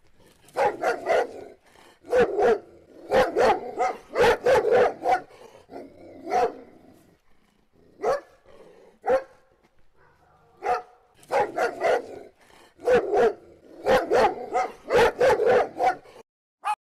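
Pomeranian barking in quick runs of sharp yaps, two to four barks at a time with short pauses between, while begging for a treat held above it.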